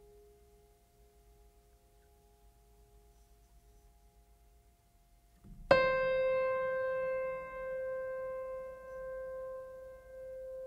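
Sparse, slow background music: faint held notes fade away, then about halfway through a single piano note is struck and rings out slowly.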